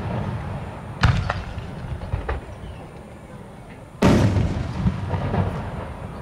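Fireworks bursting: two loud booms about three seconds apart, each rumbling away in a long echo, with fainter cracks and pops between them.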